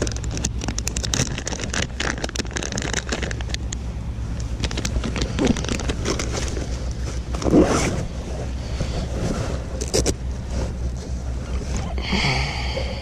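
Rain jacket rustling and tackle being handled close to the microphone: a run of clicks, scrapes and scuffles, the loudest a bit past halfway, over a steady low hum.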